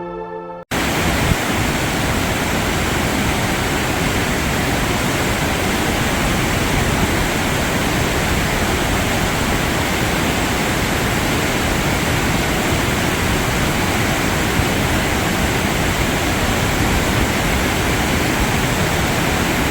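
Latefossen waterfall's falling water rushing in a loud, steady roar, starting abruptly about a second in as background music cuts off.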